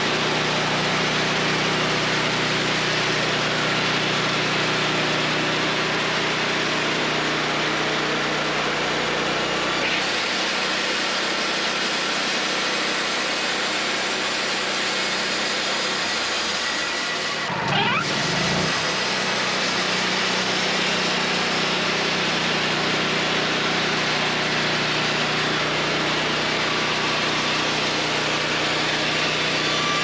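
Wood-Mizer LT40 portable band sawmill running steadily, its engine under load as the band blade saws boards off a Douglas fir cant. The sound shifts about a third of the way through and breaks off briefly about two-thirds of the way through.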